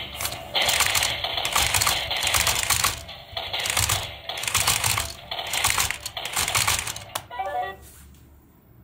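Toy boxing robots punching, run at 6 volts from a bench power supply: their plastic motor-and-gear mechanism clatters in repeated bursts of rapid clicks for about seven seconds. A short pitched electronic sound follows near the end.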